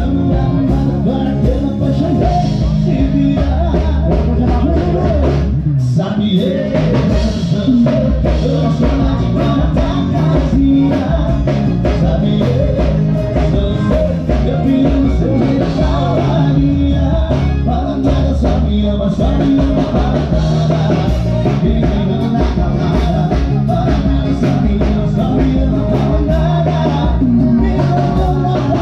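Live band playing: a man singing into a microphone over acoustic guitars with a steady bass line, amplified through a PA speaker.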